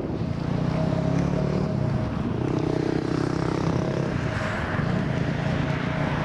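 Steady engine drone with low layered rumble and a constant high whine, swelling briefly about halfway through.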